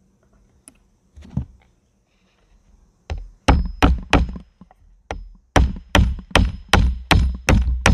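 Hammer blows driving a steel nail into the edge of a weathered wooden board: about a dozen sharp strikes at two to three a second, each with a short metallic ring, starting about three seconds in with a brief pause midway. Before them come a few light taps as the nail is set.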